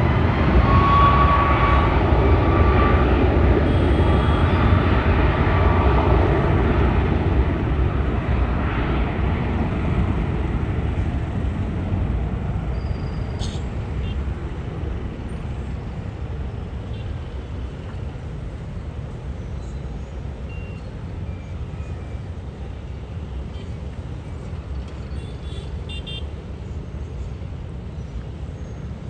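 An aircraft's engines passing close by: a loud rumble with a steady high whine in the first few seconds, fading gradually as the aircraft moves away.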